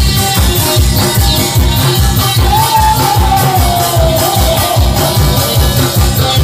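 Lively pumba music with a fast, steady drum beat from a large barrel drum, with a hand gong played along. About halfway through, a long melodic note holds and then slides downward.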